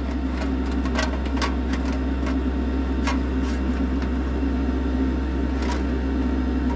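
Electric fan running with a steady hum, with a few light metal clinks as tongs knock against the metal tin while a diecast cab is turned over in hot caustic soda.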